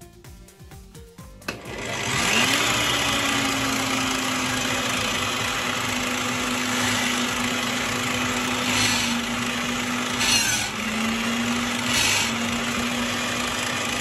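Parkside bench drill press switched on with a click about a second and a half in, its motor spinning up quickly and then running with a steady hum. Three brief louder spells follow near the end as the bit bores into a wooden block, the motor's pitch dipping slightly under the load of the second.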